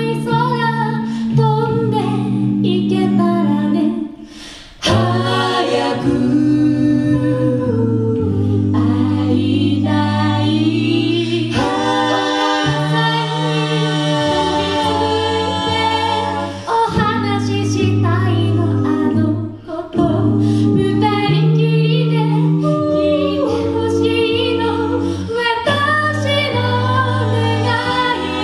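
A five-voice a cappella group of women and men singing a song in harmony through microphones, with a low sustained bass part under the chords. The singing drops away briefly about four seconds in, then carries on.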